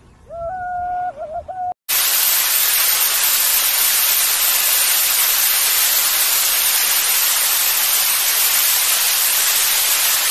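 A short wavering hoot-like tone, then, after a sudden cut, a loud steady hiss of rushing noise with almost no low rumble.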